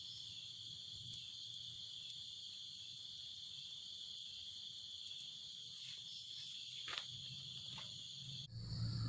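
A steady, unbroken chorus of night insects chirping at a high pitch, with one or two faint snaps from the campfire near the end. The insect sound cuts off suddenly shortly before the end, and a low rumble takes over.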